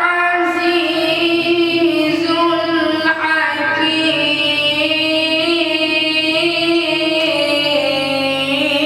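A man's voice reciting the Quran in melodic tarteel style, drawing out one long phrase in held, slowly ornamented notes.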